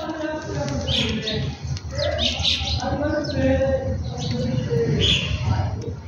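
House sparrows chirping, a few short runs of high chirps.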